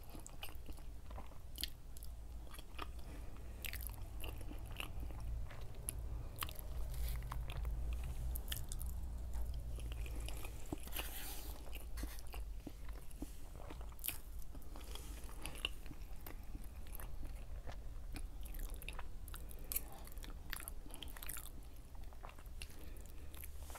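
Close-miked chewing and mouth sounds of a person eating soft food, with many small irregular clicks and light crunches. A low steady hum runs underneath.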